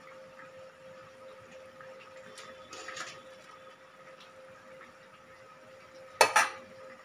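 A spatula stirring prawn and hog-plum curry in a kadai: a short scrape against the pan about two and a half seconds in, then two sharp knocks on the pan near the end. A faint steady hum runs underneath.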